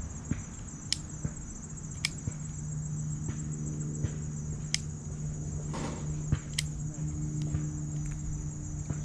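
Insects chirring steadily in a high, finely pulsing band, with a few sharp ticks scattered through and a low steady hum underneath.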